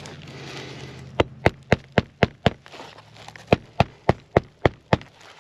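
Hammer driving roofing nails to fasten a shingle back down: two quick runs of about six strikes each, around four a second.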